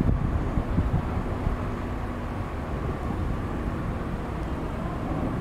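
Narrow-body twin-jet airliner climbing out after takeoff: a steady, distant jet engine rumble with a faint hum in it. Wind buffets the microphone in the first second or so.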